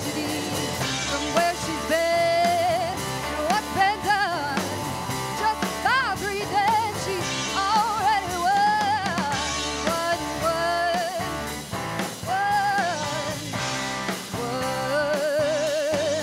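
Live indie rock band playing: a woman's lead vocal over guitar, bass and a drum kit with cymbals. Her held notes waver with vibrato.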